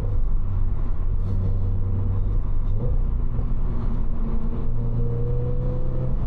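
Toyota GR86's 2.4-litre flat-four running through a Cobb titanium cat-back exhaust while the car is driven. A steady engine note whose pitch steps up slightly about three seconds in and climbs slowly near the end as the revs rise.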